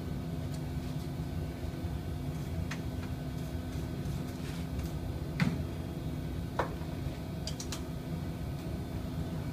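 Steady hum of factory machinery, with a few short sharp clicks and metal knocks from handling at the machine, the loudest about five and a half seconds in.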